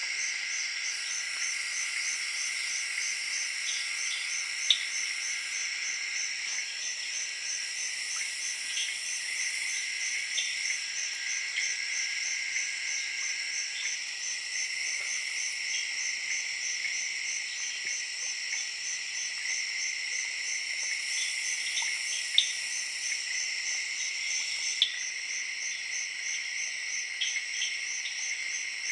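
Tropical rainforest evening chorus of tree frogs and crickets: a steady, high, rapidly pulsing trill over a dense insect drone, with a few short sharp calls or clicks rising above it.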